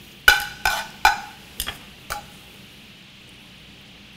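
Metal tongs clinking against a stainless sauté pan while lifting wilted spinach, five sharp strikes in the first two seconds, each ringing briefly. After that, only a faint steady hiss.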